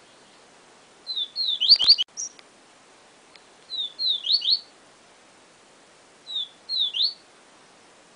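Papa-capim seedeater (Sporophila) singing its 'siu siu professor' song: three short phrases of quick, sharply slurred high whistles, each a couple of seconds after the last.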